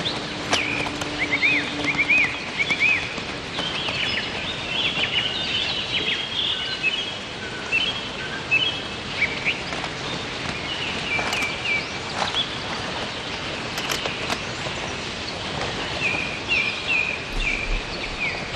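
Small songbirds chirping and singing, with short runs of quick repeated notes, over a steady background hiss of forest ambience.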